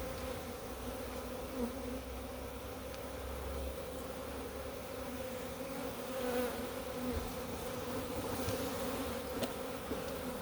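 A swarm of honey bees buzzing in a steady, dense hum as they are moved into a new hive, with a few faint knocks from handling the boxes.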